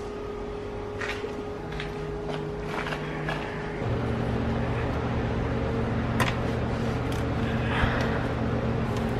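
Light clicks and knocks of hands working plastic trim and wiring connectors under a car seat. About four seconds in, a steady low hum comes on and keeps going.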